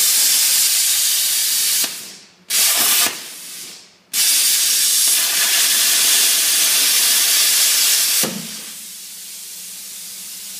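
Plasma cutter cutting through a bolt: a loud, harsh hiss that stops and restarts twice and then drops, about eight seconds in, to a quieter steady hiss.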